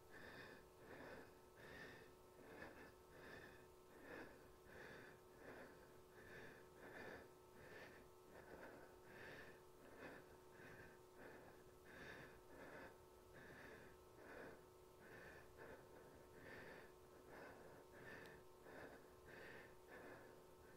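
Faint, rhythmic breathing of a woman under exertion, a breath a little more than once a second, over a faint steady hum.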